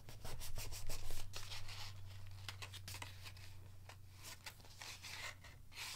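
Paper rustling, scraping and clicking as hands pull and fold a paper pull-tab pop-up in an art journal, testing that it slides freely and nothing is glued down. It is busiest in the first second or so and thins out after, over a steady low hum.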